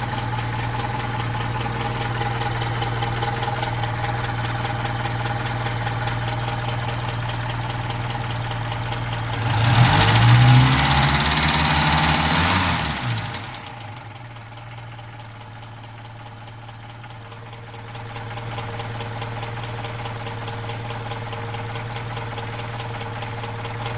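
1959 Opel Rekord P1's four-cylinder engine idling with a clatter. About ten seconds in it is revved once: the pitch rises and falls back over about three seconds. Afterwards it is quieter for a few seconds, then settles back to a steady idle.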